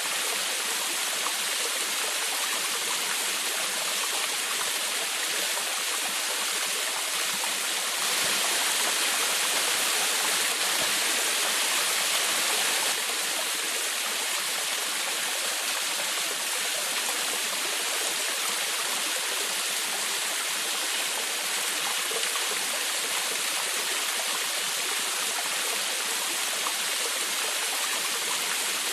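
Waterfall water splashing and babbling in a steady, even rush, swelling slightly louder for a few seconds about a third of the way in.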